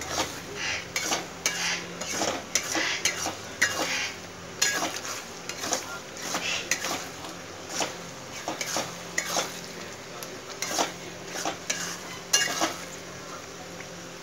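Steel spatula scraping and stirring sticky rice around a dark coated kadai in uneven strokes about once or twice a second, over a soft sizzle of oil and ghee as the rice cooks down on low heat.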